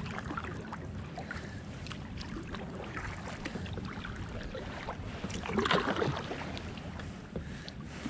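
Kayak paddle strokes dipping and splashing in the river, with water trickling off the blades. A louder splash comes a little past the middle.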